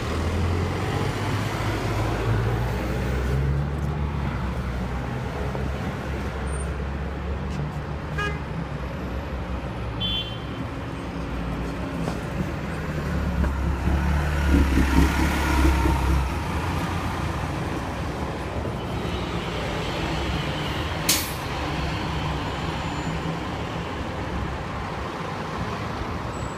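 City street traffic, with buses and other heavy vehicles running and a steady low rumble; the rumble grows loudest for a few seconds about halfway through. A single sharp click comes about two-thirds of the way in.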